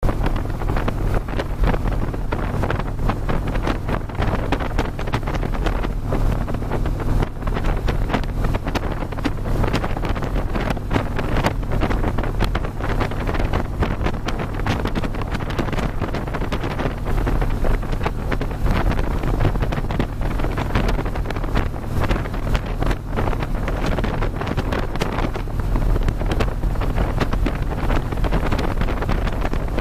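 Heavy wind buffeting the microphone on a motorcycle at highway speed, over the low steady drone of a Harley-Davidson engine.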